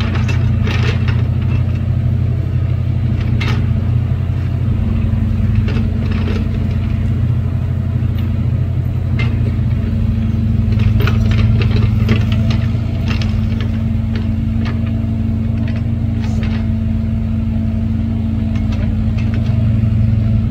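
Steady low engine rumble and hum, like an engine idling, unchanging throughout, with scattered light clicks and ticks over it.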